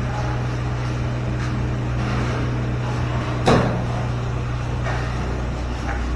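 Excavator engine running steadily with a low hum, and a single sharp clank about halfway through.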